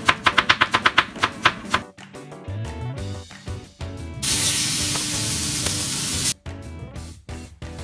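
A knife shredding cabbage on a cutting board: about a dozen quick, even chops in under two seconds. A few seconds later, Japanese hamburger steak patties sizzle loudly in a frying pan, and the sizzle cuts off suddenly.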